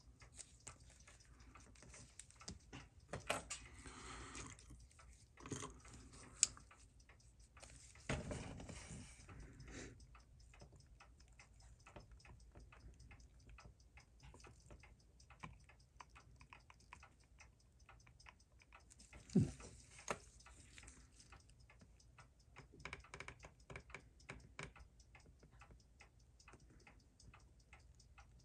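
Faint, fast, even ticking of a running Seiko 6139 automatic chronograph movement in its movement holder, with small knocks and rustles of watchmaker's tools on the bench; the loudest are a clatter around 3 to 6 seconds in, a rustle near 8 seconds and a sharp knock near 19 seconds.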